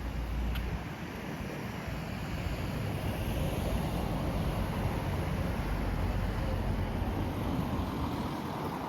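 Strong wind gusting and buffeting the microphone, a rushing noise with low rumbles that swells through the middle and eases near the end.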